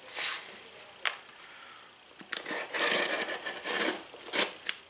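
Utility knife blade scraping and slicing through the tape on a cardboard shipping box: a rasping scratch lasting over a second in the middle, with a few sharp clicks as the box and knife are handled.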